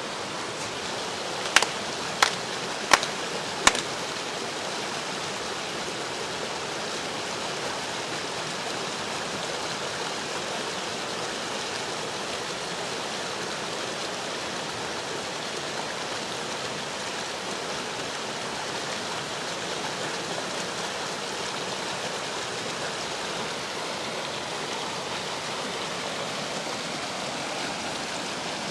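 River rapids rushing steadily over shallow rock ledges. Near the start, four sharp claps ring out about two-thirds of a second apart.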